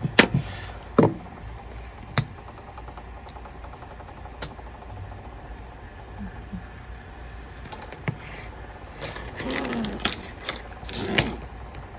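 Small plastic and metal parts of an airsoft gas blowback pistol being handled: a few separate sharp clicks and taps, then a busier stretch of clicking and rubbing near the end.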